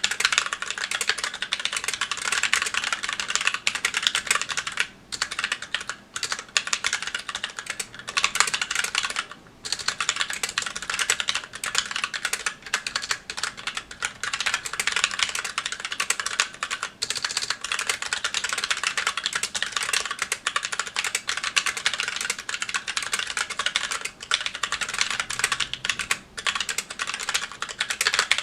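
Steady fast typing on a Magicforce 68 mechanical keyboard with stock Gateron Brown tactile switches and GMK Olive keycaps: a dense run of key clacks with a few brief pauses.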